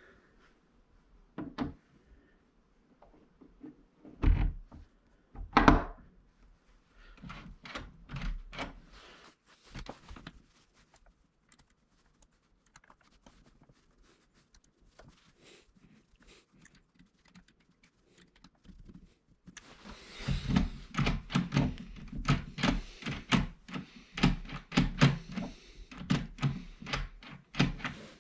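Parts of a Baldwin door handleset being handled and fitted on the door: two loud knocks about four and six seconds in, scattered clicks, then a long run of quick clicks and rattles in the last third.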